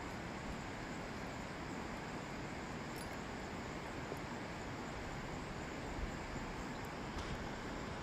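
Steady outdoor background hiss, even and unchanging, with a few faint soft ticks.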